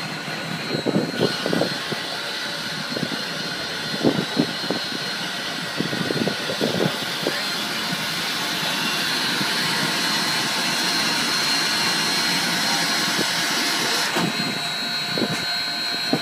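Union Pacific 844, a FEF-3 4-8-4 steam locomotive, standing with steam hissing steadily. The hiss gets louder suddenly about a second in and drops back shortly before the end.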